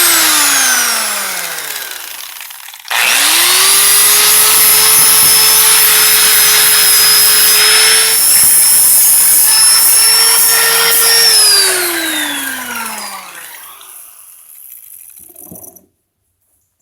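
Battery-powered angle grinder with a 40-grit sanding pad, scouring rust and scale off forged steel. A short run winds down in the first two seconds. About three seconds in it spins up again and runs steadily for about eight seconds, then winds down to a stop with a falling whine.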